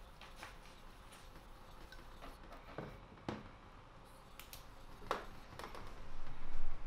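Rubbing and scraping on the wet face of an Ohira natural sharpening stone, with a few sharp clicks and taps scattered through it, growing louder near the end.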